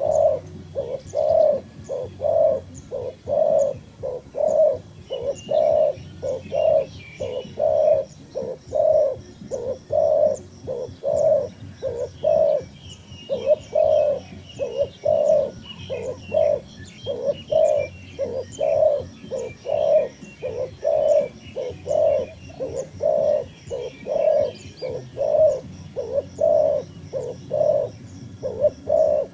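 A dove cooing over and over in a steady run of short, low coos, a little more than one a second. Small birds chirp faintly above it.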